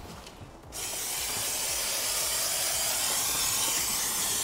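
Aerosol can of brake cleaner spraying in a steady hiss, starting under a second in.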